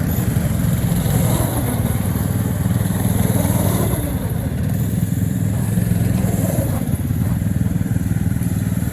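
Small gas engine of a home-built track sled running steadily, its speed rising and falling a little.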